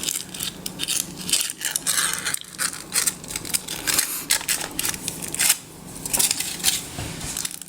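Thin foil wrapper of a chocolate surprise egg crinkling and tearing as it is peeled off by hand, a dense run of irregular crackles that stops suddenly near the end.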